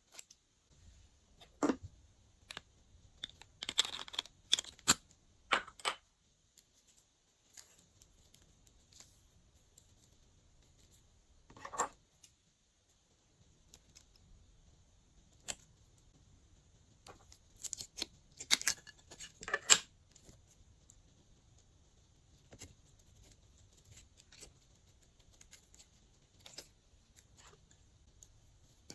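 Slime being handled and mixed, with scattered short clicks, crinkles and squishes as small items and containers are worked into it. The busiest stretches come about 4 to 6 seconds in and again around 18 to 20 seconds in.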